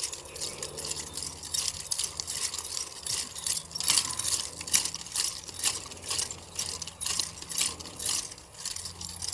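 Two nunchaku, one wooden and one metal, spun together: rhythmic swishes through the air and chain rattle, about two to three strokes a second, loudest near the middle.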